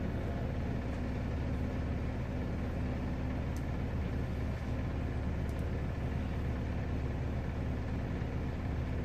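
Steady low machine hum that does not change, with two faint ticks about three and a half and five and a half seconds in.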